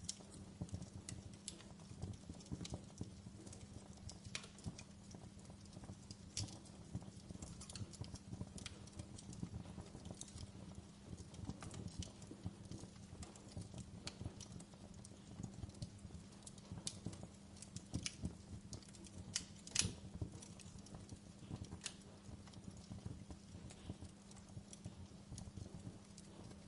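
Wood fire in a fireplace crackling: frequent irregular sharp pops and snaps over a steady low hum, with one louder pop about three-quarters of the way through.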